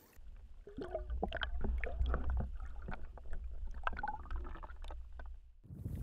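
Muffled underwater sound picked up by a camera held below the surface: a steady low rumble with scattered clicks and gurgles as the released bass swims away. It cuts off suddenly near the end.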